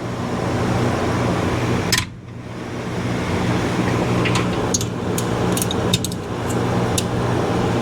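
A steady machine hum with a noisy whir, dipping briefly about two seconds in and building back up, with a few light metallic clinks of hand tools in the second half.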